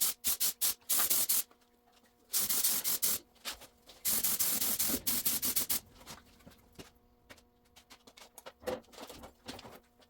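Spray painting: paint spray hissing in repeated bursts as the trigger is pulled and released, several long passes in the first half and shorter, fainter ones after.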